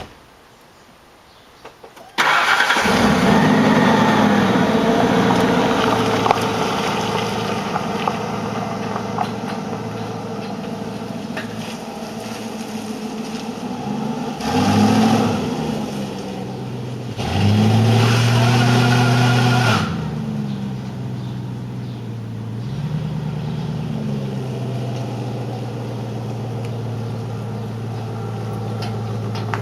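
Ford Crown Victoria V8 engine starting about two seconds in, then idling, with two short revs partway through before settling back to idle.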